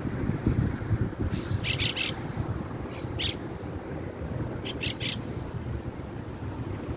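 Short, harsh bird squawks in three bunches, about a second, three seconds and five seconds in, over the steady low drone of a small propeller plane passing overhead.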